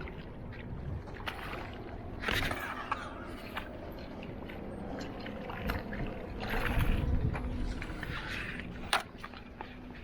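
Water sloshing and splashing unevenly, with a few sharp knocks.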